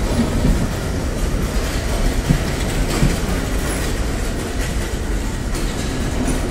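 Bangladesh Railway intercity passenger coaches rolling slowly past along the platform: a steady low rumble of the running train, with a few scattered wheel clacks over the rail joints.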